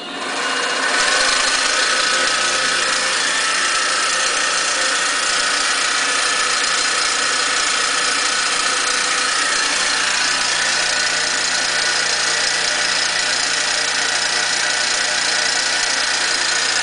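Harbor Freight micro mill's spindle motor switched on, coming up to speed over about a second and then running steadily with a high whine.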